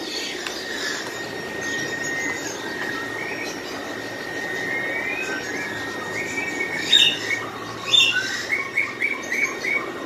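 Birds chirping, with two sharper calls about seven and eight seconds in and a quick run of chirps near the end, over a thin steady high tone.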